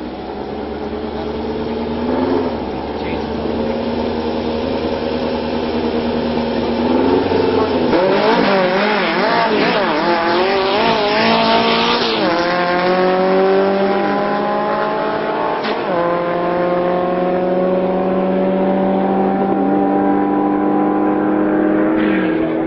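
Drag-racing VW Beetle's engine held at steady revs, then launching hard about eight seconds in with a wavering pitch, and pulling down the strip rising in pitch through three upshifts, each a sudden drop, before easing off near the end.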